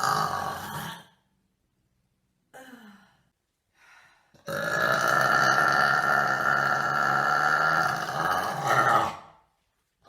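A woman burping: the end of one burp trails off about a second in, then after a short pause a long, loud burp runs for about four and a half seconds before cutting off.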